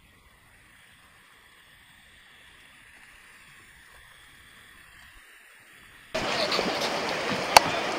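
Rapids rushing, first heard faint and muffled through the GoPro's waterproof housing on the paddleboard's nose and swelling slowly; about six seconds in, the sound cuts abruptly to a loud, open rush of whitewater, with one sharp click near the end.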